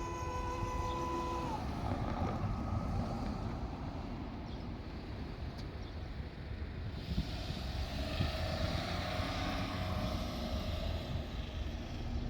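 Steady low rumble with some wind noise on the microphone. A held tone of several notes at once cuts off abruptly about a second and a half in.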